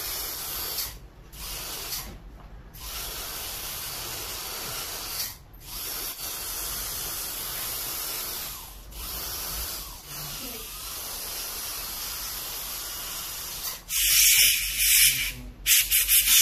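Steady hiss of dental equipment spraying, dropping out briefly a few times, then a louder, higher spray in short stop-start bursts near the end.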